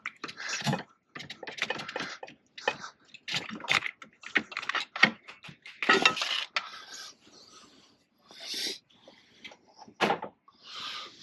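Irregular clanks, knocks and scrapes of parts and tools being handled in a truck's engine bay while the engine is off.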